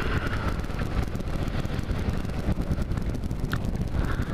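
Kawasaki KLR 650's single-cylinder engine running steadily while the motorcycle rides along, with wind rushing over the microphone.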